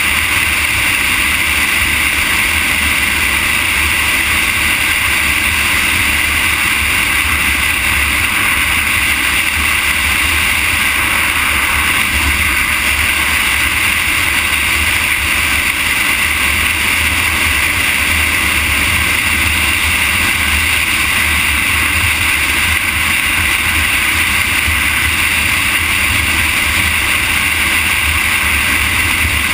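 Steady wind and road noise from a camera travelling along a paved road, an even rushing with a low rumble underneath that holds without change.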